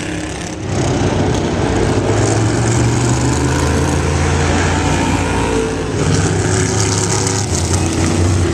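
Vintage race car engines running at speed on the track, a loud, steady engine drone with a brief dip about half a second in.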